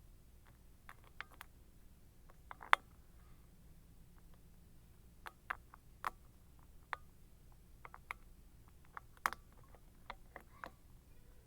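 Sparse, faint clicks and ticks of a hook pick and tension wrench working the pin tumblers of a 5-pin Abus 55/50 padlock, irregular, with a few sharper clicks, one near three seconds in and one a little past nine seconds.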